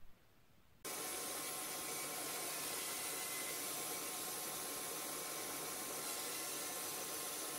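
Bandsaw running steadily as a block of softwood is fed into the blade. The steady noise comes in about a second in, after a moment of silence.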